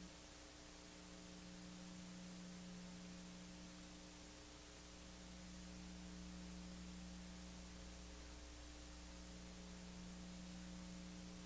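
Near silence: a steady low electrical hum under faint hiss.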